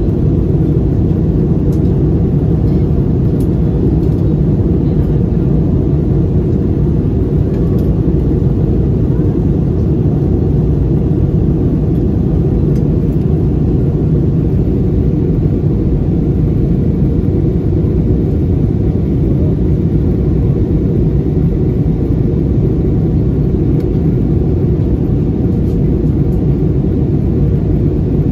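Steady jet airliner cabin noise in flight: an even, loud low rumble of the engines and rushing air, heard from inside the cabin at a window seat.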